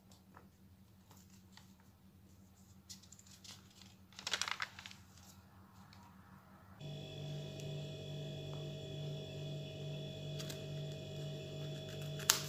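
A paper book page rustling as it is turned, about four seconds in, among faint handling clicks. Just before seven seconds a steady hum with a few constant tones starts abruptly and keeps going, and a sharp click comes near the end.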